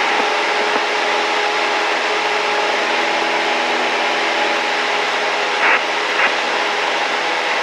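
Cessna 172's piston engine and propeller droning steadily, heard from inside the cabin. There are two brief rustles about two-thirds of the way through.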